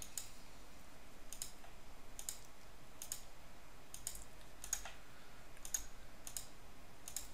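Computer mouse clicking: about a dozen faint, short clicks at an uneven pace, many in quick pairs, from clicking through a drop-down menu in design software.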